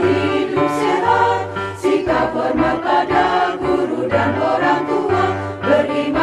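Music: a song about the UKS school health programme, with choir-like voices and steady backing continuing without a break.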